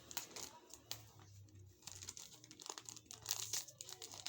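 Plastic wrapper of a Nabati wafer being handled and torn open by hand, crinkling in an irregular run of crackles.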